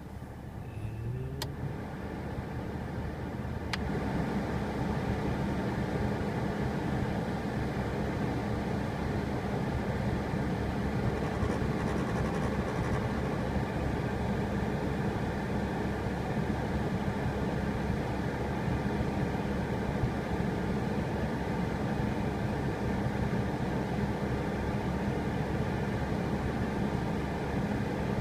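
Suzuki Kei heater blower fan motor running with a steady buzzing drone, the "boo" noise of a faulty fan motor. A sharp click comes about four seconds in, after which the drone holds at a steady, slightly louder level.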